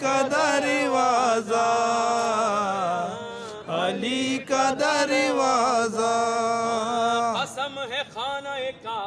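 A man singing a devotional Urdu poem unaccompanied, in a chanting style, holding long notes with wavering melismatic ornaments. Near the end the line breaks into shorter phrases.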